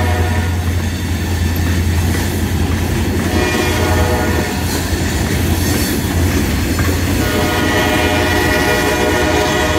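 Loaded stone hopper cars of a long, heavy freight train rolling past, steel wheels grinding on the rails. A steady whine of several tones sits over a low rumble; the whine weakens just after the start and comes back strongly about seven seconds in.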